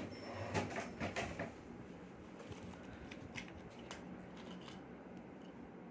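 Toy packaging being handled as the toy is taken out: a few rustles and clicks in the first second and a half, then faint scattered clicks.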